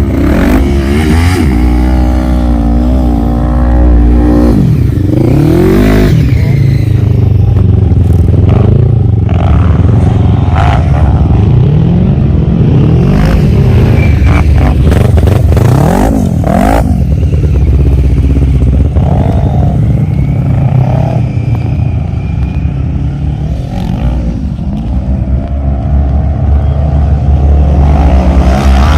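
ATV engines running and revving up and down over and over, with a heavy low rumble and scattered knocks and clatter.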